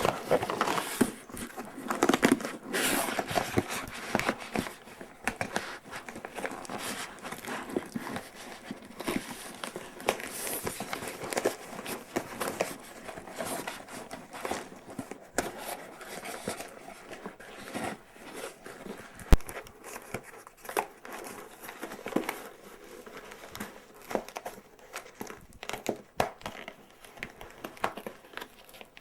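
Packaging being handled and unwrapped: continuous irregular crinkling and rustling with scattered clicks, and one sharp snap about two-thirds of the way through.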